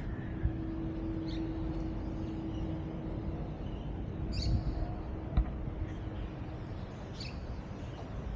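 A few short, high bird chirps, spaced a few seconds apart, over a steady low background rumble and a faint steady hum that fades out near the end.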